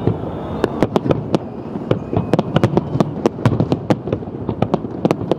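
Fireworks display: a rapid, irregular string of sharp bangs and cracks, several a second, over a continuous low rumble of further bursts.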